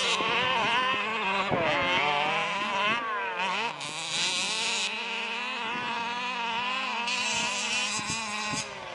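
Small two-stroke engines of several large-scale radio-controlled buggies running at once, revving and easing off as they race, their overlapping pitches sweeping up and down.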